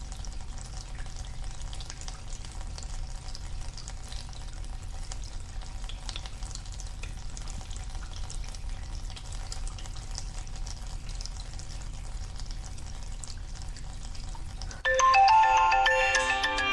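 Tap water running steadily into cupped hands at a bathroom sink as a face is splashed and washed. About fifteen seconds in, a mobile phone ringtone melody starts, loud.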